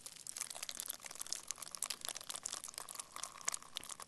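Sound effect of dripping blood: a dense, irregular run of quick wet drips and splats.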